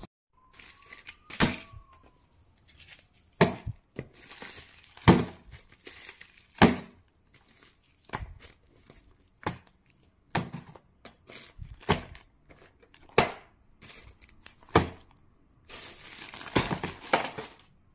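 Plastic-wrapped packets being handled on a table: plastic bags crinkling, with sharp taps and knocks every second or so as items are picked up and set down.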